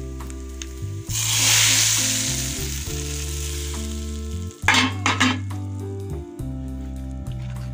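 Hot tarka oil and spices poured into a pot of cooked masoor dal, hissing loudly as it hits the dal about a second in and dying down over the next two seconds. A few sharp clanks follow about five seconds in.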